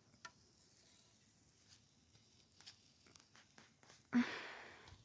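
Hardwood campfire crackling faintly, with sharp pops scattered through. About four seconds in comes a short, louder rush of noise that fades within a second.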